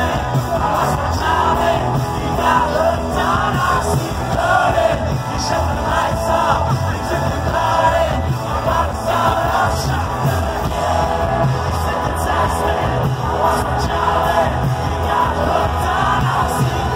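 Rock band playing live with a male lead singer, heard through a phone's microphone from among the audience, with crowd voices mixed in.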